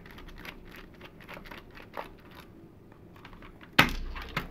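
Precision screwdriver backing a small screw out of a plastic case, with a string of light clicks and scrapes, then a sharp knock a little before the end and a smaller one just after.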